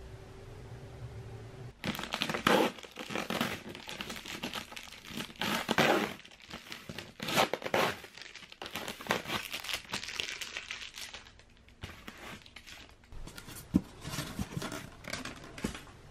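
Packing tape being ripped off a styrofoam delivery box and the box opened, with tearing and crinkling in irregular bursts starting about two seconds in. A sharp click near the end.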